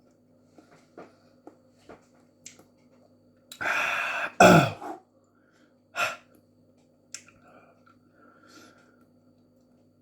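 A man coughing and clearing his throat from the burn of a Dragon's Breath superhot chilli he has just eaten. A rasping breath and a loud cough with falling pitch come about four seconds in, then a shorter cough at about six seconds and a weaker one after. A few faint clicks come in the first two seconds.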